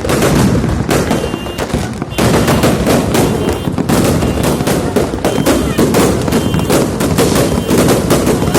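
Many fireworks and firecrackers going off at once: a dense, continuous barrage of rapid bangs and crackles, with short high whistles here and there and a brief dip about two seconds in.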